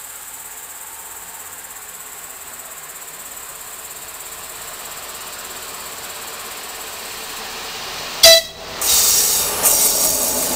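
ČD class 854 diesel-hydraulic railcar approaching and growing steadily louder, over crickets chirping in a thin high tone. About eight seconds in it gives one short, loud horn toot, then passes close by with loud running and wheel noise.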